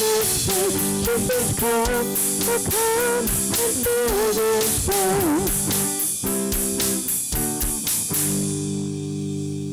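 Live church worship band: a woman singing the melody over strummed acoustic guitars and a steady drum beat. The singing drops out partway through, and about eight seconds in the drums stop, leaving one held chord ringing as the song ends.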